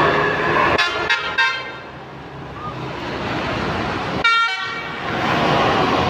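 Bus telolet horn (Basuri multi-tone horn) sounding three quick toots about a second in, then one longer toot near four seconds in, over steady traffic noise.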